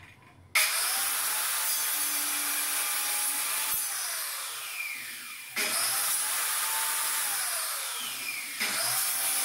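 Handheld electric circular saw started three times: each time the motor spins up abruptly to a steady high whine, then winds down with a falling whine as the trigger is let go. The starts come about half a second in, about five and a half seconds in, and near the end.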